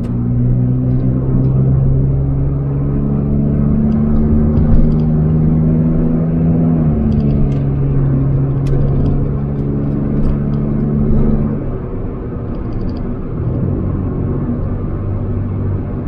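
Car cabin noise while driving at speed in a Nissan: a steady engine hum over road rumble, with the engine note stepping to a slightly different pitch about seven and about twelve seconds in.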